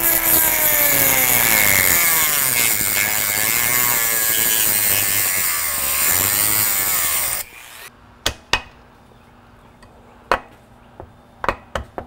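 Dremel rotary tool grinding at the breakaway security bolts that hold a motorcycle ignition switch: its motor pitch sags and wavers as it bites, then cuts off about seven seconds in. A series of sharp clicks and knocks follows as the part and tools are handled.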